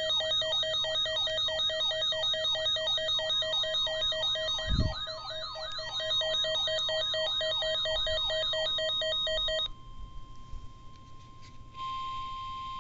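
Several electronic weather-radio alarms sounding together, a repeating falling warble about three times a second over steady pulsing beeps, which cut off suddenly about three-quarters through. Under and after them a steady NOAA Weather Radio 1050 Hz warning alarm tone, the signal that a warning is about to be broadcast, growing louder near the end; a low thump about five seconds in.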